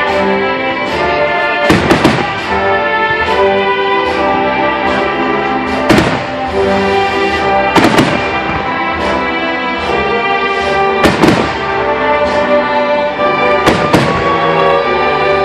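Aerial firework shells bursting, a sharp report every two to four seconds, over steady orchestral music with brass.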